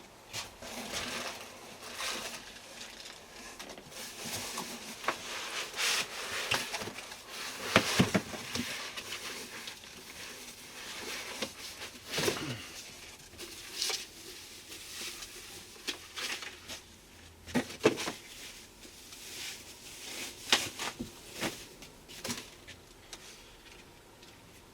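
Packaging rustling and crinkling as a boxed power inverter is lifted out, with irregular handling noise and a few sharper knocks and bumps.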